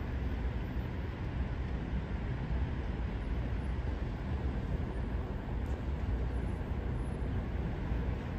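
Steady low rumble of distant vehicles around a railway station, with a train approaching from far off.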